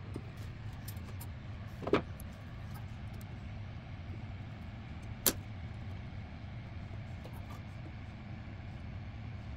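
Sharp metal clicks from snap-ring pliers fitting a retaining ring on a bench drill press's spindle pulley shaft, two of them about three seconds apart with a few faint ticks, over a steady low hum.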